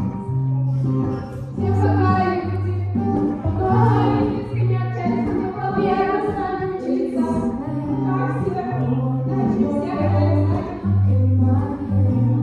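Two girls singing a song into microphones over a backing track with held bass notes, amplified through a PA speaker.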